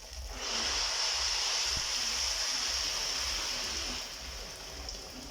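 Boiled water being poured into a hot pot of rice and fried beef, rushing and hissing as it hits the pan. The pour starts about half a second in and eases off about four seconds in.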